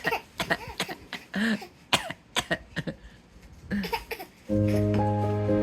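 A string of short, playful coughs and throat-clearing sounds, traded back and forth as a young child copies coughing as if it were a greeting. About four and a half seconds in, background music with steady held notes comes in.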